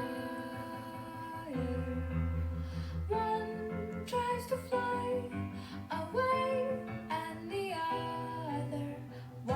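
Background music: a song with a singing voice holding and sliding between notes over instrumental backing.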